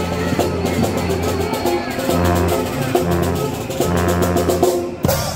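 Loud festival music with drums and a steady, held bass line, with voices over it. It drops out for a moment near the end.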